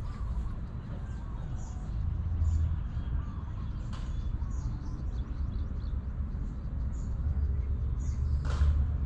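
Birds chirping here and there over a steady low rumble, with one short sharp click near the end.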